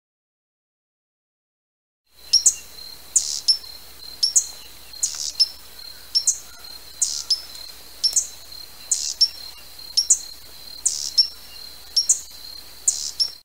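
Silence for about the first two seconds, then a hummingbird's sharp, high chip calls, mostly in quick pairs, repeating about once a second over a steady high thin tone.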